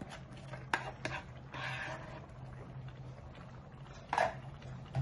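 Thick palm-nut sauce being poured and scraped from a bowl into a pot of stew, with a few light clicks of the bowl against the pot, a short wet pouring hiss just under two seconds in, and a louder clack about four seconds in, over a steady low hum.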